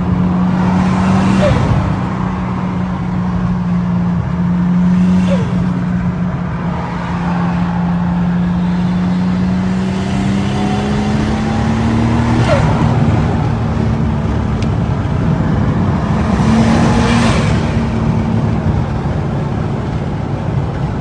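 Nissan Skyline R34 GTT's turbocharged RB25 straight-six being blipped, giving a steady engine note. A short rush of turbo flutter (compressor surge) comes about every four seconds as the throttle closes.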